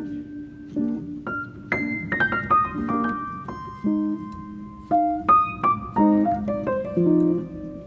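Solo piano music: single notes and chords, with a quick run of falling notes about two seconds in.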